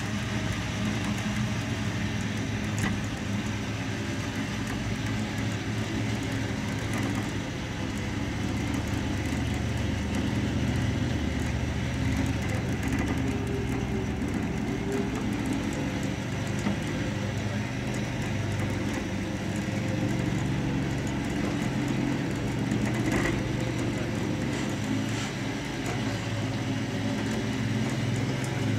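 A truck engine idling steadily, with a couple of faint knocks.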